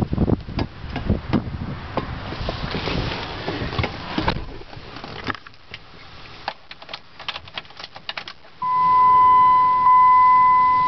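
Knocks, clicks and rustling of someone getting into a pickup cab, then a quick run of small clicks. About two-thirds through, a steady high warning tone starts suddenly and holds: the dashboard chime of the 2005 Dodge Ram SRT-10 with the ignition switched on.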